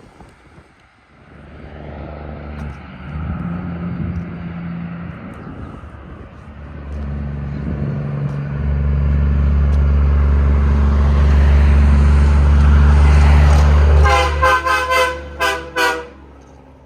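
Diesel locomotive approaching and passing close, its engine rumble building steadily louder, then its horn giving a quick series of short blasts near the end.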